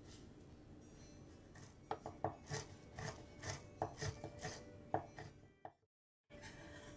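Kitchen knife chopping red chillies on a bamboo cutting board: a quick run of sharp knocks, about four a second, starting about two seconds in. It stops just over five seconds in and drops to complete silence for a moment.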